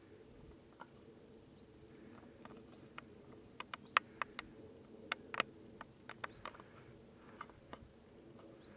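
Irregular sharp clicks and ticks, in a loose flurry through the middle, over a faint steady hum, with the odd short rising bird chirp in woodland.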